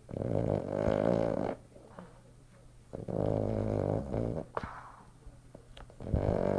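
Boston terrier snoring in its sleep: three long, rough snores about three seconds apart, the last one starting near the end.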